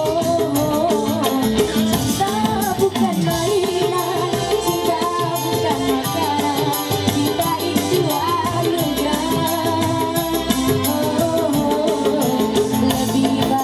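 Music with a singing voice over a steady, fast percussion beat.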